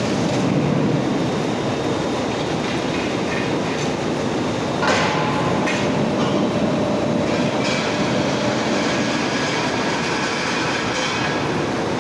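Heavy industrial plant machinery running steadily with a dense rattling clatter. A brief knock about five seconds in, and thin metallic whining tones come and go after it.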